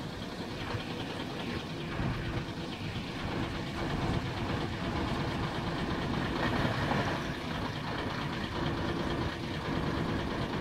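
Diesel engine of a Jelcz 422 fire truck running at low revs as the truck pulls out and rolls slowly closer, growing gradually louder.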